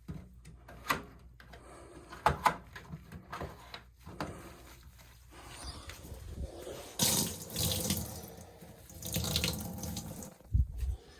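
Water draining out of the drain-filter housing of an LG front-loading washing machine, running and splashing in two longer gushes in the second half, with a few sharp clicks around two seconds in.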